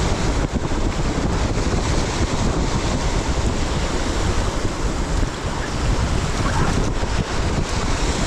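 River rapids rushing and splashing around an inflatable raft, a steady loud roar of water mixed with wind buffeting the microphone.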